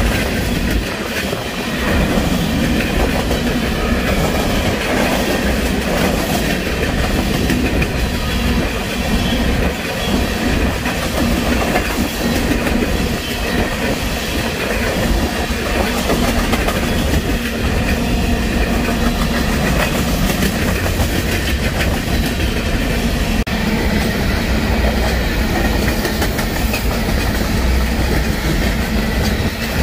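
Freight train of covered hopper cars rolling past close by: a steady rumble of steel wheels on rail, with repeated clacks as the wheels cross the rail joints.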